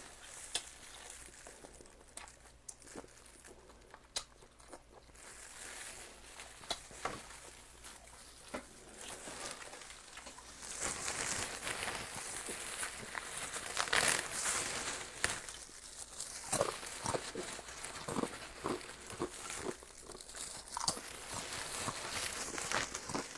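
Close-up crunching and crinkling eating sounds: a run of sharp crackles and clicks that grows busier and louder about halfway through.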